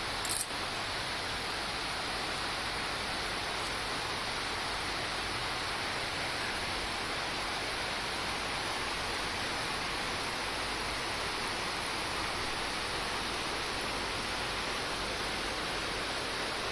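Heavy rain falling steadily, an even hiss with no letup. A brief sharp click sounds just after the start.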